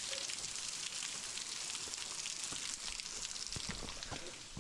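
Waterfall spray falling and spattering close by: a steady hiss of water with a dense patter of droplets splashing.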